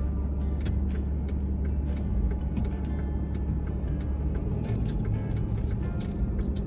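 A truck driving at low speed: a steady low road-and-engine rumble with frequent light ticks and rattles throughout.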